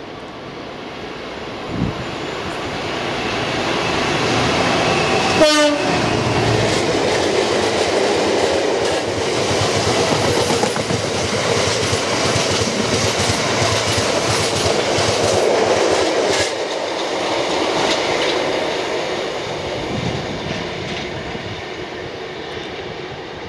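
Class 59 diesel locomotive, an EMD two-stroke, passing with a brief horn tone about five seconds in, followed by its string of box wagons running by on the rails. The noise builds, holds for about ten seconds, then fades as the train goes away.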